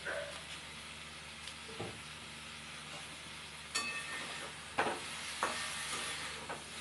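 Chalta (elephant apple) pieces sizzling in hot oil in a metal pan, a steady frying hiss. From about four seconds in a spatula stirs them, knocking and scraping against the pan three times.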